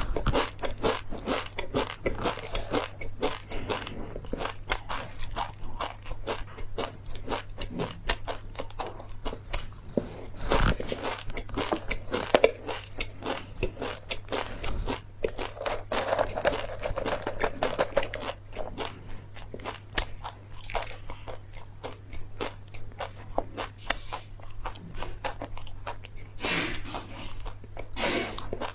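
Close-miked chewing of dry seeds and chili crisps: a dense, continuous run of small crackly crunches with a few louder snaps here and there.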